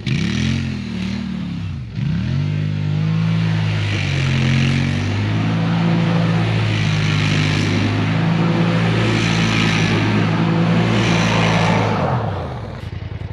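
Quad ATV engine revving up and down twice, then held at high revs for about ten seconds, dropping to a low, fast-pulsing near-idle near the end.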